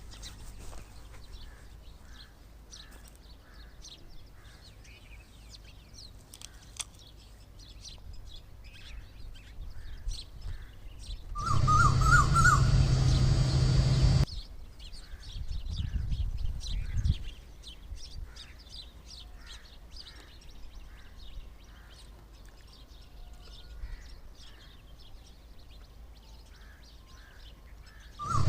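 Many small birds chirping in quick, short calls. Near the middle comes a louder stretch of about three seconds holding a wavering, trilling call over a low hum, followed a little later by a brief low rumble.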